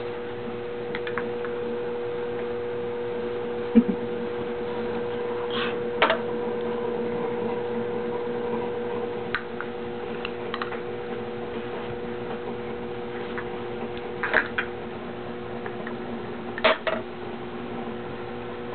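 Small plastic toy teacups and spoons clicking and knocking together now and then, a few sharp taps spread through, over a steady electrical hum.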